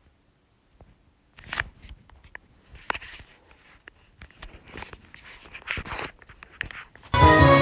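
Music cuts off abruptly, leaving a few seconds of scattered faint clicks and knocks, then loud music comes back in near the end.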